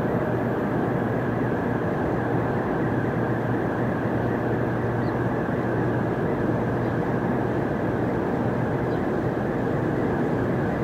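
Steady jet engine rumble of a Boeing 777-200ER coming in to land, holding an even level with no rise or fall.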